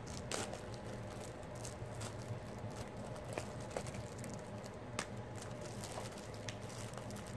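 Faint scattered clicks and light rustles of a small plastic jewelry bag being handled and opened, over a steady low hum.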